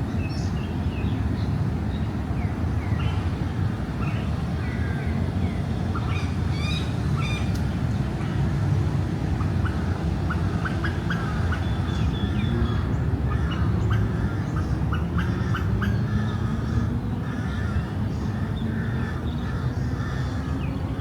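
Birds calling and chirping in many short, overlapping calls, over a steady low rumble.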